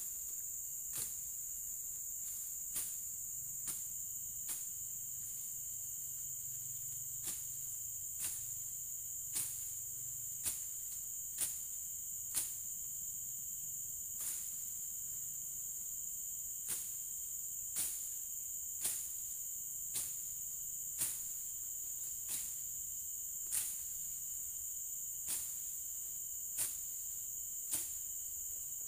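Machete chopping through grass and bamboo undergrowth, sharp strokes landing irregularly about every one to two seconds. Under it, a steady high-pitched chorus of insects.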